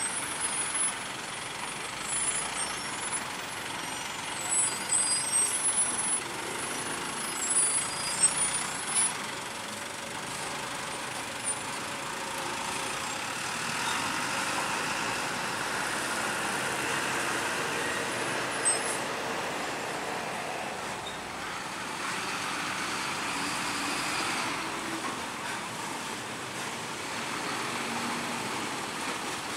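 Heavy box truck rolling slowly over a railway level crossing amid mixed traffic, its engine and tyres giving a steady rumble. High-pitched brake squeals come in short bursts through the first several seconds. Later other vehicles pass close by.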